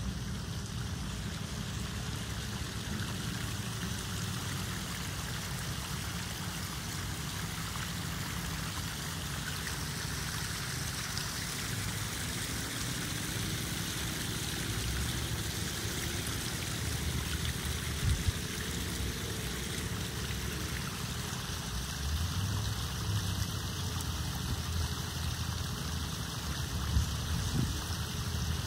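Small rock waterfall of a backyard koi pond, water splashing steadily into the pond, with a couple of brief low thumps.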